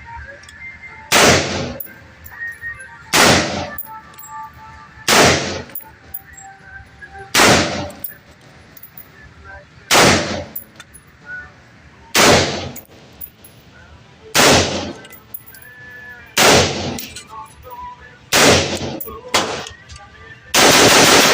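Single gunshots fired at a slow, even pace, about one every two seconds and nine in all, each with a short ringing tail. A dense, loud run of noise starts near the end.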